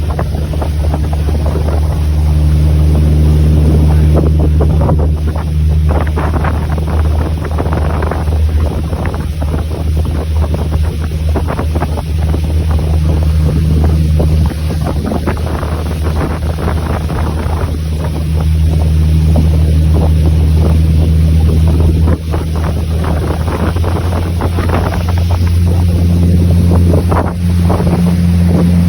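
Steady low drone of a running engine, with wind buffeting the microphone.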